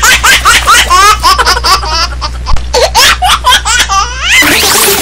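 High-pitched laughter in many quick rising and falling bursts over a steady low hum, ending with a steep rising sweep about four seconds in.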